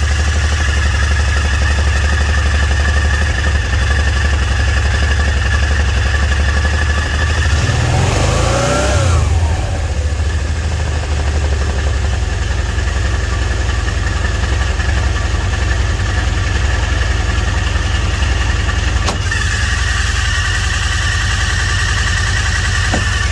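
Kawasaki Teryx 800's V-twin engine idling with a steady high-pitched screech over it, which the owner suspects is a clutch problem. The screech fades about a third of the way in, while the engine is briefly revved, and comes back near the end.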